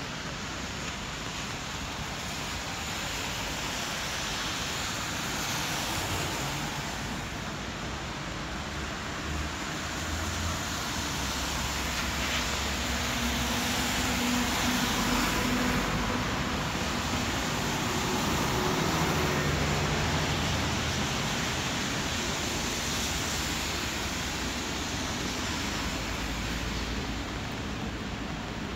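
Wet-street traffic: a steady hiss of rain and tyres on wet road, with the low hum of bus engines passing close by, loudest in the middle.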